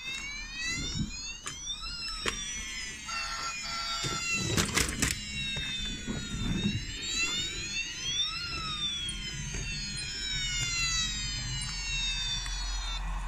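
Electronic toy sound effect from a Brio battery train set: several siren-like tones rising and falling over one another, set off by pressing a button on the track. A few sharp clicks of plastic and wooden toy parts come around the middle.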